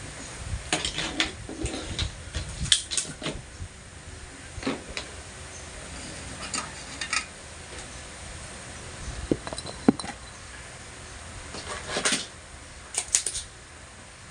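Small metal tools clinking and tapping against each other and a hard work surface, in irregular clusters of sharp clicks and clatters.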